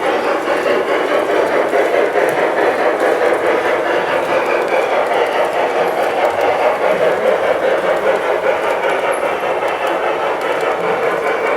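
LGB G-scale model train running, a steady even noise with no breaks.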